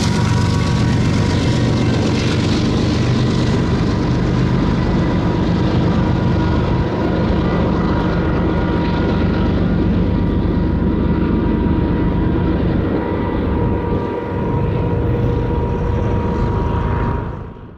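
A BNSF freight train rumbling away from the crossing after passing. Its hiss dies down over the first few seconds, leaving a steady low rumble with a thin high tone running through it, and the sound fades out quickly near the end.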